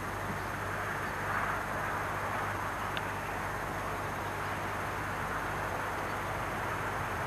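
Steady outdoor background noise with a low hum underneath, swelling slightly about a second and a half in.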